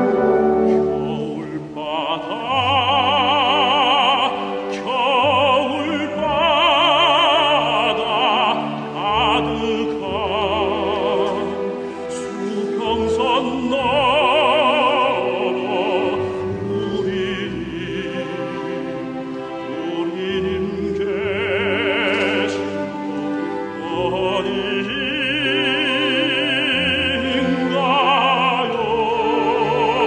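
A tenor sings a Korean art song in operatic style with wide vibrato, over instrumental accompaniment. The voice comes in about two seconds in.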